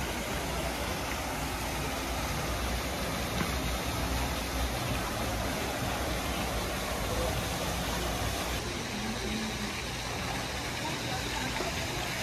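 Steady rumbling hiss of outdoor background noise with no distinct events, its level even throughout.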